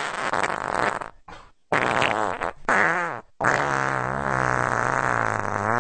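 A string of fart sounds one after another: a short raspy one, a brief blip, two pitched ones that bend in pitch, then a long one that wavers and rises in pitch near the end.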